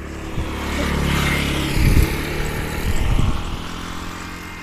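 A motor vehicle's engine running steadily, growing louder about a second in and then fading toward the end.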